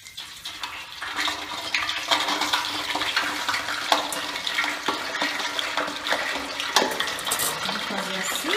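Pork belly dropped into very hot oil, which bursts into vigorous, churning bubbling with sharp crackles and pops. It builds over the first second or two and then keeps going. This is the thermal shock that puffs the skin into pururuca (crackling).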